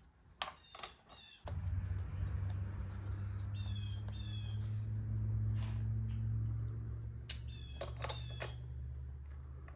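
Crows cawing in two short bouts, a few seconds apart, over a low droning hum that starts suddenly, swells and slowly fades. A few sharp clicks are mixed in.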